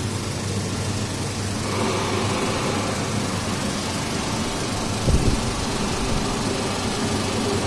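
Steady hum and fan noise of a running cinema xenon lamphouse and its power supply, with a constant low mains hum underneath. A brief low thump comes about five seconds in.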